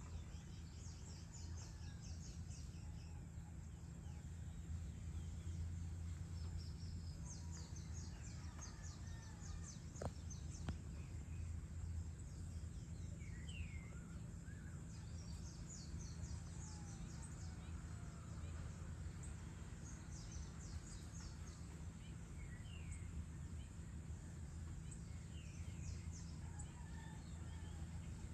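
Faint outdoor ambience of birds calling over a steady low rumble. Bursts of rapid, high chirping come and go, with a few short downward-slurred whistled calls. There is a single sharp tick about ten seconds in.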